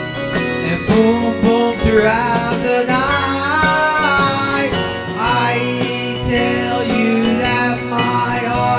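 Country-style music: an acoustic guitar is played with a melody line over it that bends up and down in pitch, an instrumental passage with no words sung.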